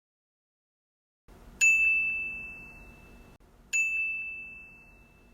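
A small bell struck twice, about two seconds apart, each a clear high ding that rings on and slowly fades.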